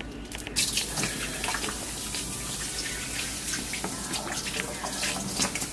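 Water running into a kitchen sink: a steady splashing rush that starts about half a second in.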